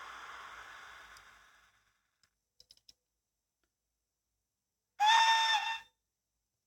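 Märklin Re 620 model locomotive's sound decoder: a hissing running sound fades away, a few small clicks follow, and then a loud single-pitched horn sounds once for just under a second near the end.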